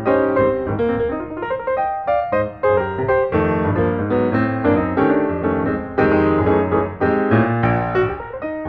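Piano music, with notes and chords struck in quick succession over a bass line.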